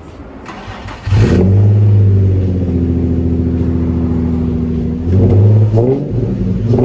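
Nissan Z sports car's engine revving up about a second in and holding a steady pitch for a few seconds, then climbing in revs again near the end.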